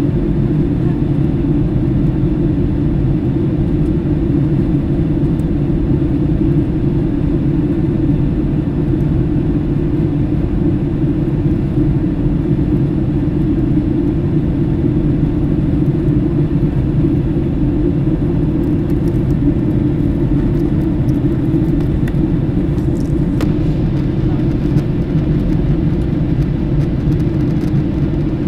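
Steady, unbroken low rumble of an aircraft in flight, heard from inside the cabin.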